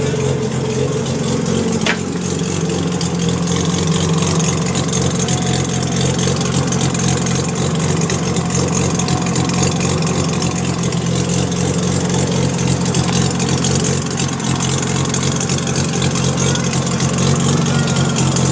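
Freshly rebuilt 1993 Mazda RX-7 13B rotary engine idling steadily on its first run after the rebuild.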